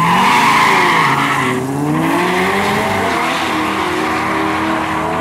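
Two drag-racing cars launching off the start line at full throttle, with a burst of tire squeal for about the first second and a half. The engines then pull away, their pitch climbing and dropping back at the gear changes.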